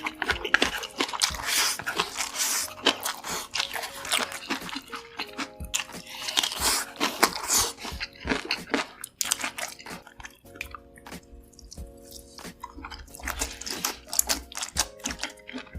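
Close-miked eating of cheesy noodles and sausages: irregular wet biting and chewing clicks, thinning out for a few seconds past the middle, over soft background music with long held notes.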